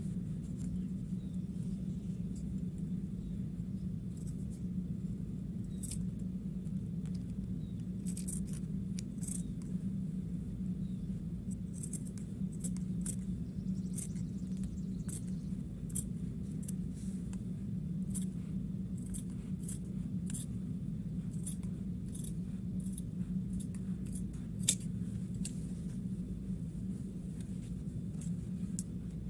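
Large scissors cutting blouse fabric, a run of short, crisp snips that come more often from about a quarter of the way in. A steady low hum runs underneath.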